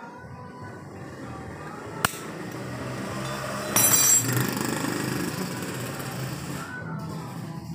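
Metal tools and engine parts clinking and clattering during engine teardown: one sharp click about two seconds in, then a louder metallic clatter with a brief ringing about four seconds in.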